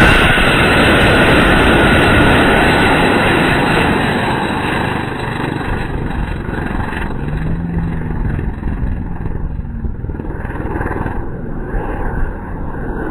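Student-built experimental rocket's hybrid motor firing at liftoff: a loud, even rushing noise at full strength at first, fading over about five seconds as the rocket climbs away, then continuing as a fainter, distant rush.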